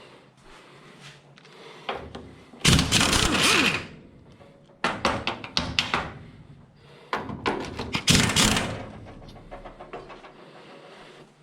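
Sheet-metal work on a car body: two harsh bursts of metal scraping and grinding about a second long each, with a quick run of sharp metal knocks and clanks between them.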